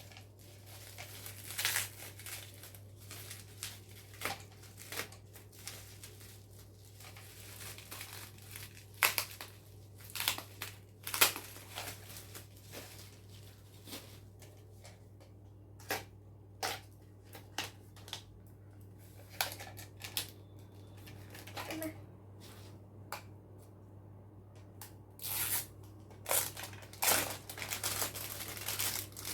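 Cosmetic product packaging being handled and opened: irregular crinkling and tearing of wrapping, with scattered clicks and taps.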